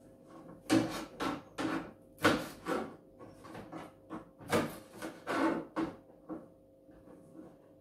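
Irregular knocks and clatters from kitchenware being handled at a sink, about a dozen of them over the first six seconds, some with a hollow ring, over a faint steady hum.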